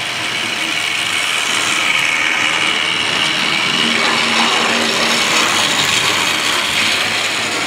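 OO gauge model trains, including a green Tri-ang Hornby 0-4-0 tank engine, running along the track: a steady motor whir with the rattle of wheels on the rails.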